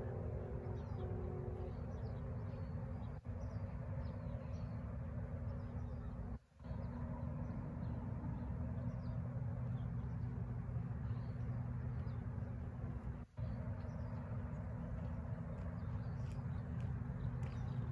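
Steady low outdoor rumble with small birds chirping faintly throughout; the sound drops out for an instant three times.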